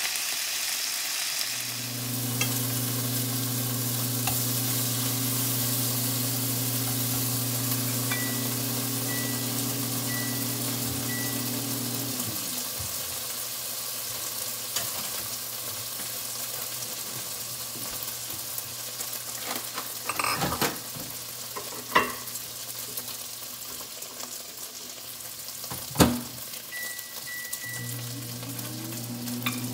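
Bacon sizzling in a frying pan on an induction cooktop, over the cooktop's steady electric hum, which winds down and stops a little before halfway and starts up again near the end. Short electronic beeps from the cooktop's controls come before each change, and a few sharp knocks of cookware sound in the second half, the loudest moments.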